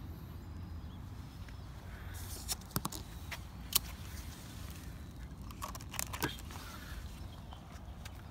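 Footsteps on paving: a handful of irregular steps and scuffs between about two and six seconds in, over a steady low outdoor rumble.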